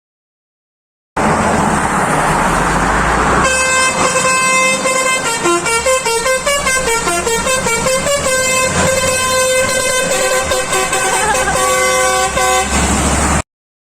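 Lorry's telolet melody horn playing a tune of several stepping notes for about nine seconds, over engine and road noise. The sound starts abruptly about a second in and cuts off abruptly near the end.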